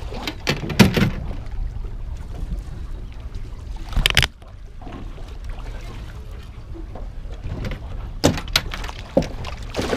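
Steady low rumble of wind and water on a small fishing boat, with scattered knocks and clatters of gear, the loudest a short burst about four seconds in.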